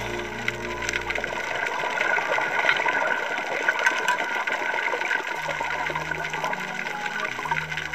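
Underwater ambient noise recorded by a dive camera: a steady hiss of water with fine crackling. Low, held music notes sound under it at the start and come back about five and a half seconds in.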